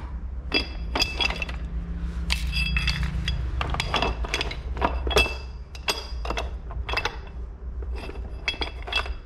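Heavy metal corner brackets clinking and knocking against one another as they are handled: a dozen or more irregular, bright ringing clinks.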